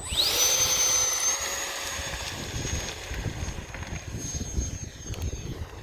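Electric ducted-fan motor of a home-built RC jet spooling up with a fast rising whine to full throttle, then holding a steady high whine that steps up slightly about a second in and slowly fades as the jet moves away.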